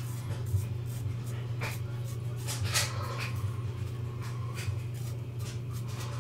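Vikings Blade Chieftain double-edge safety razor scraping through stubble in a series of short, scratchy strokes, the loudest about halfway through, over a steady low hum.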